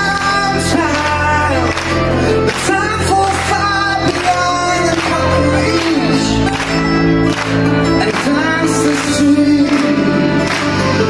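Live band music: a folk-pop song with a lead vocal sung over a steady beat and a full band accompaniment.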